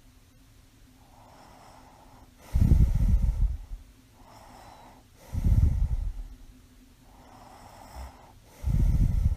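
A sleeping woman with mild sleep apnea snoring: three loud, low snoring breaths about three seconds apart, with soft quiet breaths between them.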